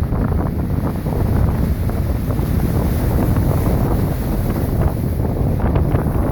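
Strong wind buffeting the microphone in a steady low rumble, over the wash of big Lake Superior waves.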